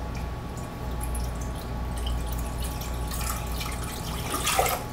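Water trickling and dripping from a plastic measuring cup into a stainless steel pot, with a short louder noise near the end.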